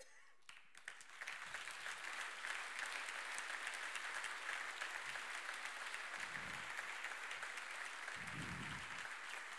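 Audience applauding: steady clapping from many hands that builds up about a second in and then holds at an even level.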